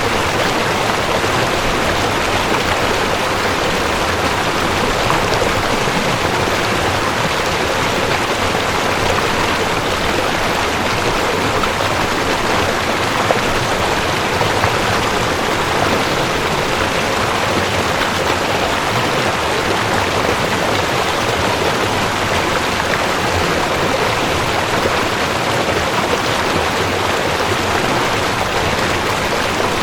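Mountain stream rushing over rocks: a steady, loud rush of water.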